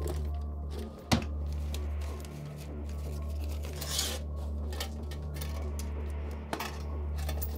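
Objects being handled while someone rummages through a drawer and under a bed: a sharp knock about a second in, a rustling swish about four seconds in, and scattered small clicks. A low drone that swells and dips runs underneath.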